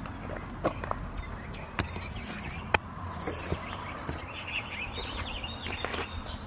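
Small birds chirping in the background outdoors, with a few sharp clicks and taps in the first half.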